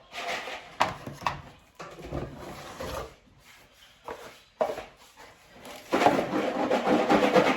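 Unboxing handling noise: scattered clicks and knocks as the electric kettle and its parts are handled, then about six seconds in a louder, dense rustle like packaging being crinkled.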